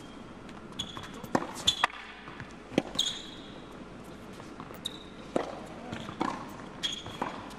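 Tennis rally: sharp pops of racket strings hitting the ball and the ball bouncing on the court, coming irregularly about a second or so apart. Some impacts are followed by brief high squeaks of players' shoes on the hard court.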